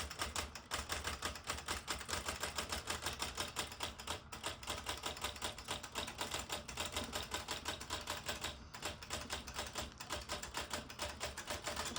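A 1981 Smith Corona Galaxie manual typewriter being typed on steadily, its keys striking at about five or six clicks a second as the carriage steps along the line toward its end.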